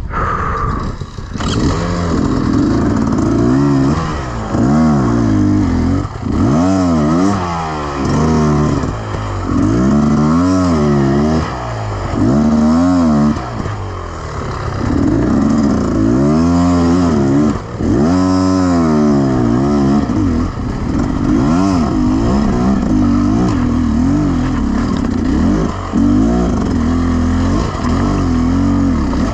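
Beta Xtrainer 300 two-stroke enduro motorcycle engine revving up and falling back over and over, roughly every second or two, as the throttle is worked.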